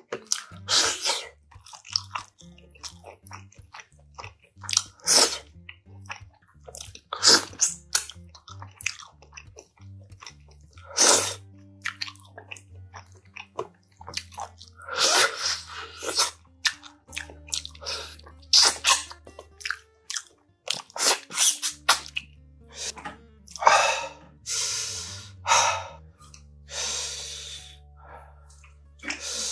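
Close-up eating sounds: chewing, sucking and lip-smacking as braised spicy pork backbone meat is gnawed off the bone by hand, in many short sharp bursts. Near the end come a few longer slurps as noodles are eaten.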